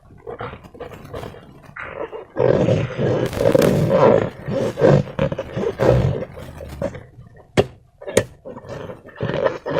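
Slime being squeezed and worked by hand, an irregular, gurgling squelch that comes in rough surges, with two sharp snaps about three quarters of the way through.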